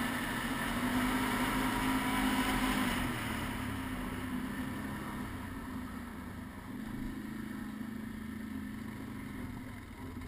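Quad (ATV) engine running while riding along a snowy track. It eases off about three seconds in and slows down, growing quieter toward the end.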